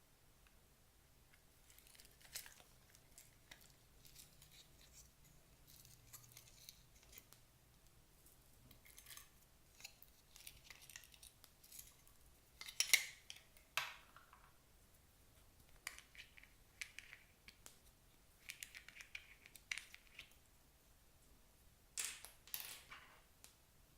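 Clear slime being worked and mixed by hand, making faint, irregular crackles and clicks. The loudest come around 13 seconds in and again about 22 seconds in.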